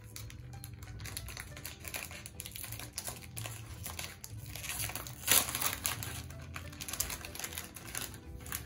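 Foil blind-bag packet being torn open and crinkled by hand: irregular crackling and rustling of the foil, loudest about five seconds in.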